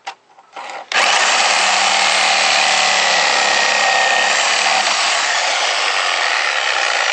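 Sawzall reciprocating saw with a metal-cutting blade starting up about a second in and running steadily at full speed, cutting through the deck screws hidden in the gap between the deck boards.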